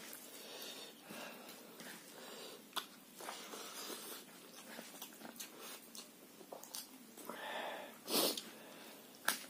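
A person eating rice and curry by hand: chewing, lip smacks and small mouth clicks, with hissing breaths drawn against the burn of black pepper and chilli. The loudest breath comes about 8 seconds in.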